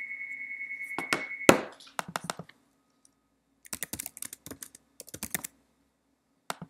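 Computer keyboard keys tapped in quick runs of clicks. Before them a high, steady electronic tone sounds and is cut off by a single loud knock about a second and a half in.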